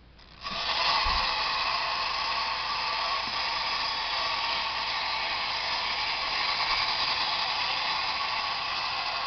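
Clockwork spring motors of two 1920s wind-up toy crawler tractors, a Structo and a Kingsbury, whirring steadily as the tractors crawl along, starting about half a second in.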